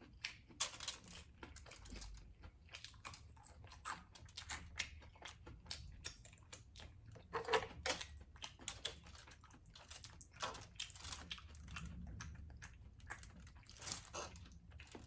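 Close-miked chewing and eating: a quick, irregular run of small mouth clicks and smacks, several a second.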